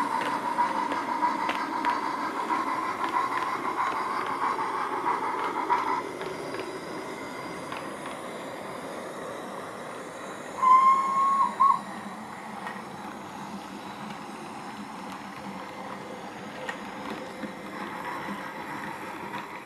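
Train-Tech sound capsule's small battery-powered speaker playing recorded steam locomotive sounds as an OO gauge model runs: a steady running steam sound with hiss, quieter after about six seconds. About halfway through it gives a whistle, one held note and then a short toot.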